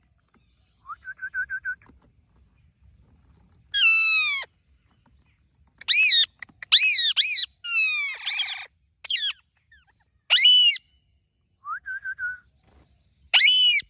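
Parrot calling: loud, harsh screeches with overtones, some sliding down in pitch and some arching, in a quick cluster midway. Twice, a soft rapid trill.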